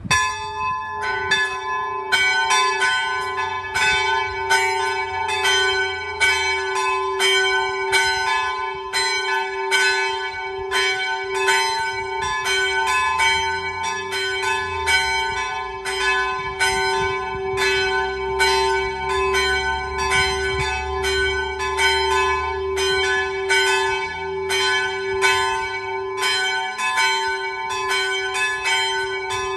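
Two small church bells swung by hand from cables, ringing a peal: their strokes overlap in an uneven, busy rhythm, and the bells' hum carries steadily beneath. The peal begins suddenly.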